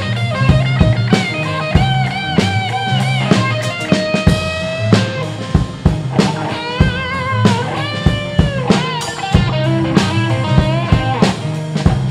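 Live blues band playing an instrumental break: a lead guitar line with bent, wavering notes over a bass line and drum kit beat.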